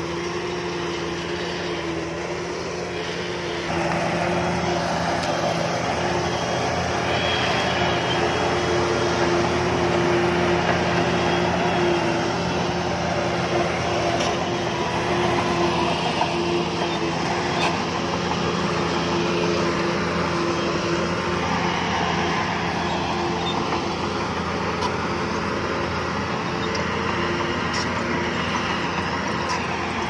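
The diesel engine of heavy earthmoving machinery running steadily under work. It gets louder about four seconds in, and its pitch wavers later on.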